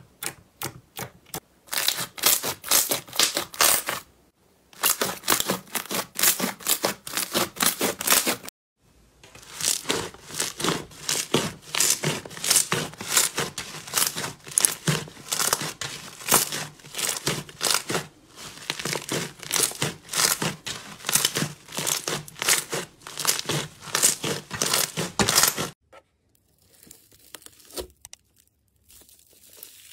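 Slime being squeezed and worked by hand, giving runs of rapid crackling and popping with two short pauses. It turns much quieter for the last few seconds.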